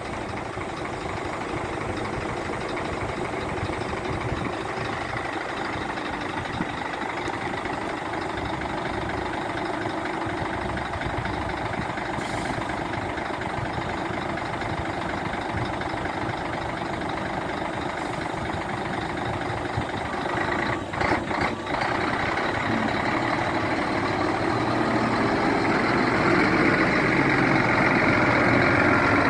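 Scania P 340 tipper truck's diesel engine idling steadily, with a few short clicks about two-thirds of the way through. The sound grows louder near the end.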